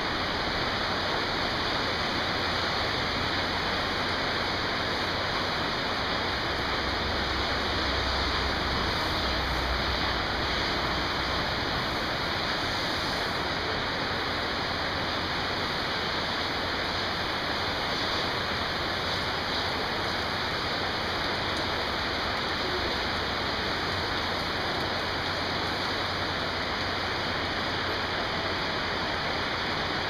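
Steady rain falling, an even hiss that does not change.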